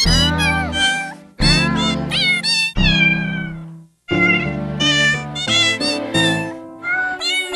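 Cat meows, pitch-shifted to play the melody of a Christmas song as a run of short, bending notes over a music backing track, with a brief break about halfway through.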